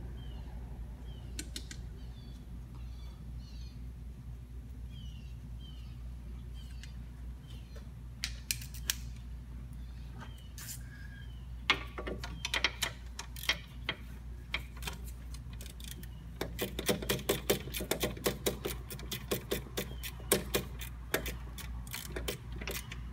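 Hand ratchet clicking as a 15 mm bolt holding an AC belt tensioner is tightened. Scattered single clicks come first, then quick runs of clicks about halfway through, with a low steady hum underneath.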